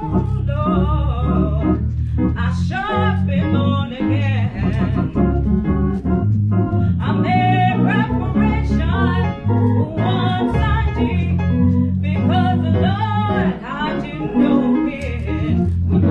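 A woman singing a solo to organ accompaniment, the organ holding sustained low bass notes under the melody.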